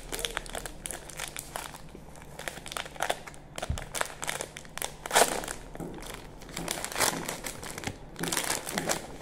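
Plastic film wrapper of a Loacker Gelato Biscotto ice-cream pack crinkling and crackling as it is pulled open by hand, in irregular bursts.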